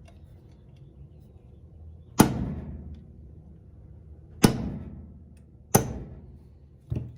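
Hammer striking a thin metal punch to drive out a mirror hinge rod. There are three sharp metallic strikes, one every second or two, each ringing briefly, then a softer knock near the end.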